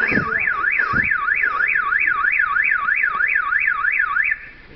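Car alarm siren wailing rapidly up and down, about four sweeps a second, then cutting off near the end. A low thump about a second in.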